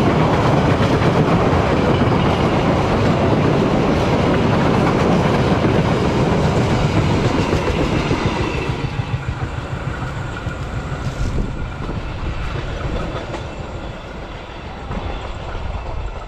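Commuter Line Bandung Raya local train's passenger coaches passing close by, their wheels running over the rails in a loud, rumbling clatter. From about halfway the sound fades steadily as the train moves off into the distance.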